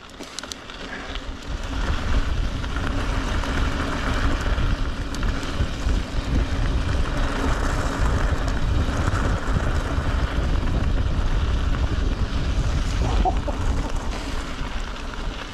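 Wind buffeting the microphone over the rumble of mountain bike tyres rolling on a gravel track, steady after building up over the first couple of seconds.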